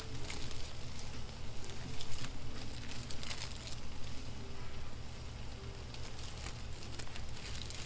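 Buttered toast slices sizzling on a hot flat griddle: a steady crackling hiss over a low hum.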